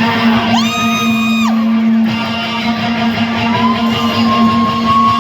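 Electric guitar playing live through a concert PA in a large hall, over a steady held low note, with a brief high pitched sound rising and falling about a second in.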